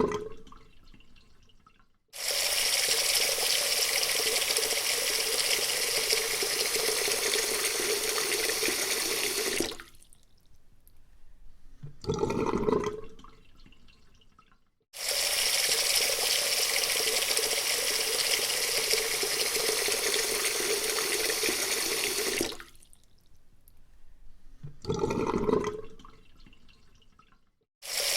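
Water running hard from a tap, starting suddenly and running steadily for about seven seconds before dying away, twice over. A short, lower-pitched swell of water sound follows a couple of seconds after each stop, and the flow starts again near the end.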